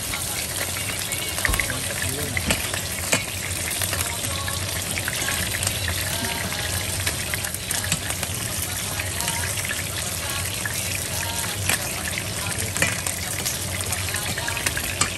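Bone-in chicken thighs sizzling in hot oil in a frying pan, a steady hiss with sharp crackles and pops every few seconds.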